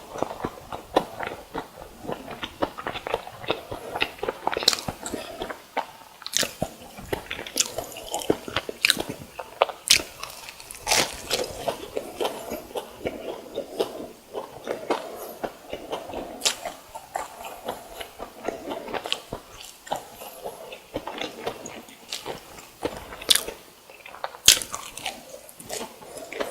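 Close-miked biting and chewing of crisp-crusted deep-fried food, with frequent sharp, irregular crunches.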